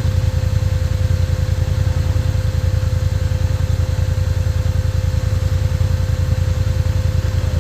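Honda four-wheeler (ATV) engine running steadily at a low, even speed, a fast regular pulse with a steady hum over it.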